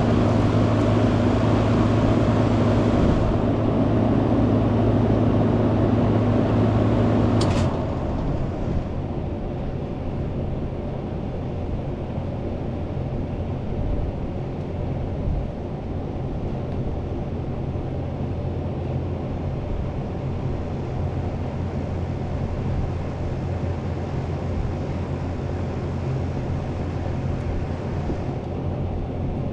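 Central air-conditioning condensing unit running with a steady compressor hum and fan hiss, then shutting off suddenly with a click about seven and a half seconds in. A quieter steady mechanical hum carries on afterwards.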